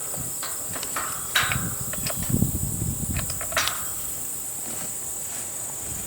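Steady high-pitched insect drone, with scattered clicks and rustling handling noises over the first few seconds, including two sharper clicks about a second and a half and three and a half seconds in.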